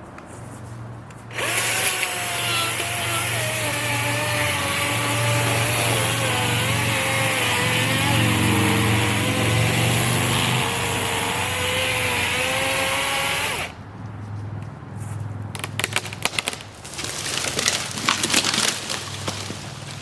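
DeWalt cordless electric chainsaw running under load through a tree trunk for about twelve seconds, its motor whine wavering as it cuts, then stopping. A few seconds later comes a run of sharp cracking and crashing as the felled tree comes down.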